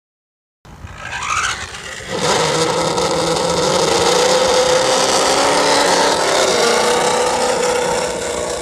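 A motor running at a steady speed, its pitch wavering slightly, starting about half a second in and getting louder about two seconds in.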